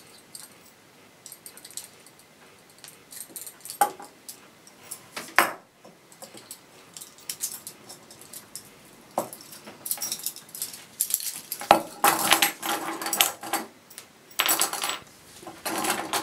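Metal handcuffs and keys clinking and jangling as the handcuffs are unlocked and taken off, with a few sharp clicks at first and thicker bouts of jangling in the second half.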